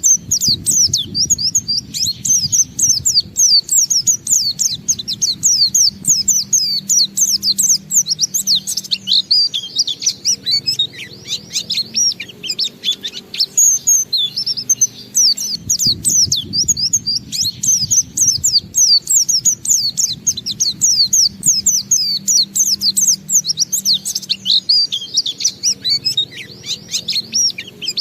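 White-eye (pleci) singing a long, continuous 'ngalas' song: a fast, unbroken stream of high twittering notes that eases off only briefly twice, the extended song style used to prompt other white-eyes into singing.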